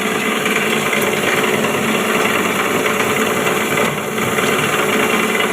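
Dry-leaf grinding machine running steadily.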